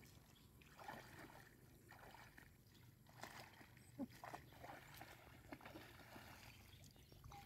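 Near silence, with faint scattered splashes and rustles of feet wading through shallow floodwater and weeds.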